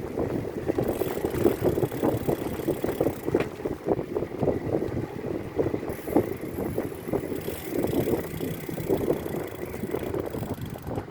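Wind buffeting the microphone of a bicycle on the move, an uneven rushing flutter with gusts coming and going throughout.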